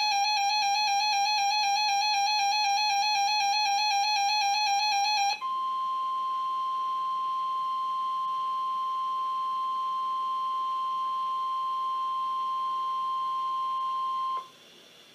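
A wavering electronic tone with overtones gives way about five seconds in to one steady high tone, which holds for about nine seconds and then cuts off sharply. The steady tone is NOAA Weather Radio's 1050 Hz warning alarm tone, which signals that a warning message follows.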